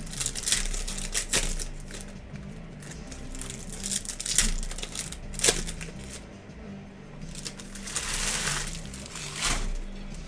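Foil trading-card packs being torn open and crinkled by hand, irregular crackling with a few sharp snaps, and a longer crinkle near the end. Faint background music runs underneath.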